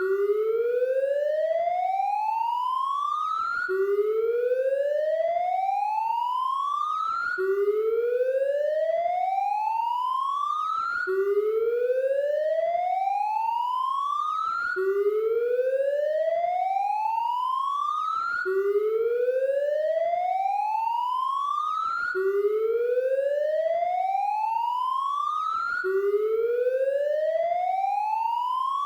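Police siren wailing: one tone rises slowly over about three and a half seconds, drops back abruptly, and starts again, about eight times in a steady repeating cycle.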